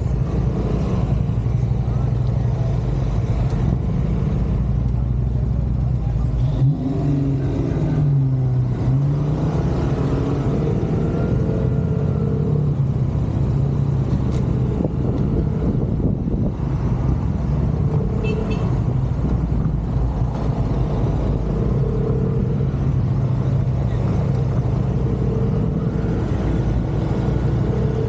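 Motorcycle engine running at low speed in a slow group ride, with a steady low engine note and surrounding traffic. About seven to nine seconds in, the engine note dips and rises once.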